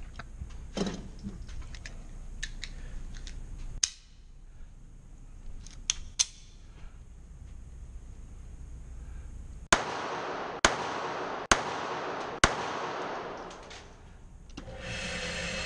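Seecamp .32 ACP pocket pistol firing four shots about a second apart in an indoor range, each Winchester white box round going off without a misfire. A few small handling clicks come before the shots. Near the end a target-carrier motor starts up with a steady hum.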